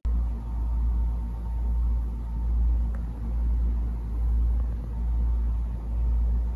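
A deep, low rumble that swells and fades about once a second, with a faint steady hum above it.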